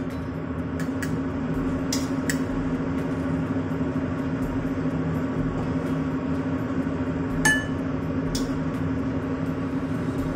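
A metal ladle clinking against a stainless-steel wok and a ceramic bowl as broth is ladled out, with one sharper ringing clink about seven and a half seconds in. Under it runs a steady low hum.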